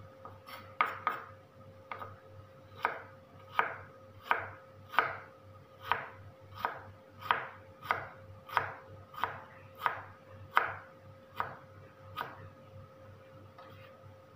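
Kitchen knife chopping carrot strips into small dice on a bamboo cutting board: a run of evenly spaced strokes, about one and a half a second, that stops about two seconds before the end.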